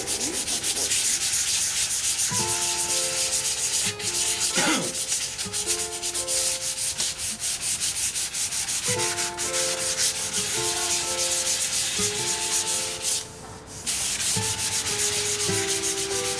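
Sandpaper rubbed by hand along a wooden cabinet, in quick, even back-and-forth strokes that stop briefly about three quarters of the way through. A quiet, slow melody of held notes plays underneath.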